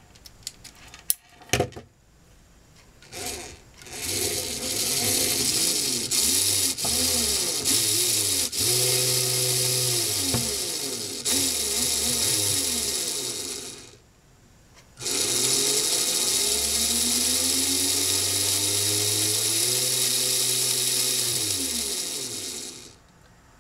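Two Lego Mindstorms motors driven through RC motor controllers, whining and humming as the transmitter sticks speed them up and slow them down, their pitch rising and falling. They run for about ten seconds, stop briefly, then run again for about eight seconds. A few clicks come before the motors start.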